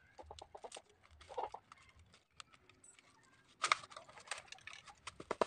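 A small blade cutting through the heat-shrunk plastic bottle band on a bundle of lidi broom sticks: irregular light clicks and plastic crackles, with a louder cluster a little past halfway.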